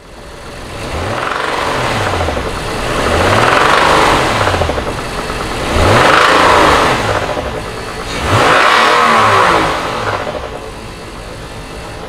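2018 Acura MDX's J35 V6 engine revved up and let fall back to idle about four times. It knocks from a spun rod bearing that has damaged a crankshaft rod journal.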